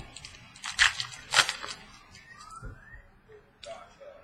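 Trading cards being handled: two sharp rustling swipes about a second in, then softer sliding and small clicks.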